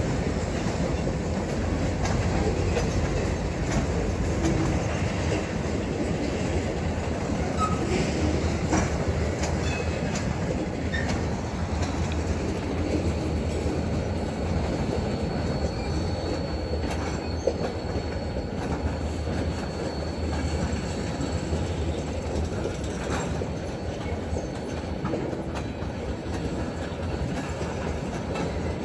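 Freight cars (covered hoppers and tank cars) rolling past on steel wheels, a steady rumble with scattered clicks from the wheels over the rail. About halfway through, a thin high squeal holds for several seconds.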